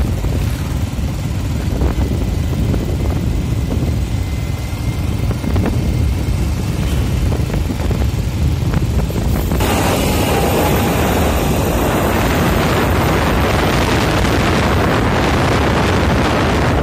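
Steady rumble of wind on the microphone and road noise from a moving vehicle, with no engine note standing out. About ten seconds in it turns into a louder, fuller rush.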